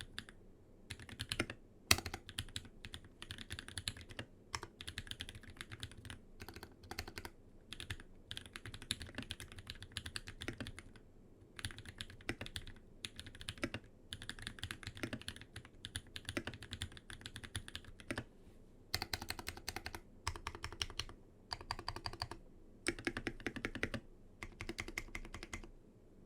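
Typing on a custom 87-key mechanical keyboard with old Holy Panda tactile switches lubed with Krytox 105, Super Lube-lubed GMK stabilizers, GMK ABS keycaps and a brass-reinforced, brass-weighted build. The keystrokes come in quick runs of a second or more, broken by short pauses, and stop just before the end.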